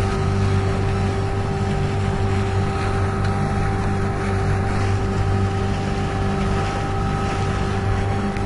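A motor running steadily at one constant pitch, with a hum over a rushing noise.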